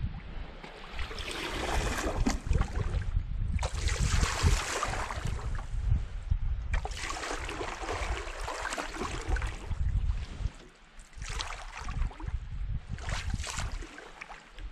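Canoe paddle strokes in calm water: about five swishes of the paddle pulling through and dripping, every two to three seconds, over a low rumble.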